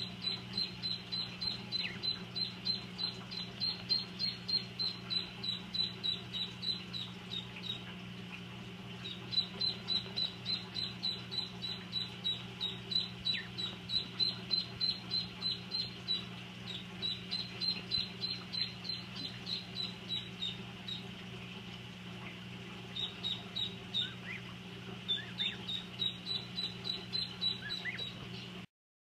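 Downy waterfowl chicks peeping in long runs of short, high peeps, about three or four a second, with a couple of brief pauses. A steady low hum runs underneath.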